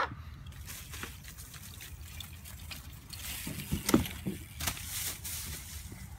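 BMX bike and rider crashing into dry fallen leaves off a plywood ramp: a few sharp knocks and a thud about four seconds in, amid heavy rustling of leaves.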